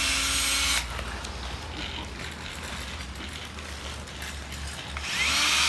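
Cordless drill boring pilot holes through a vinyl window shutter: one run cuts off just under a second in, and a second starts about five seconds in, its motor spinning up with a rising whine.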